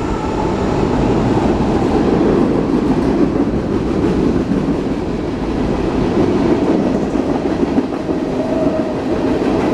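Freight train rolling past close by: a loud, steady rumble and rush of railcar wheels on the rails.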